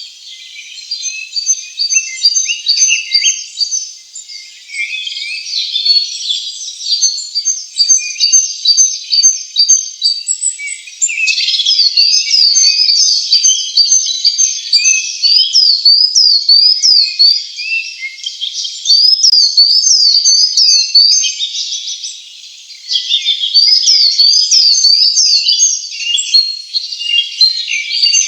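A chorus of small birds chirping and twittering, many quick high calls overlapping without a break. From about a third of the way in, runs of quick rising-and-falling whistled calls repeat, with a short lull just before the last quarter.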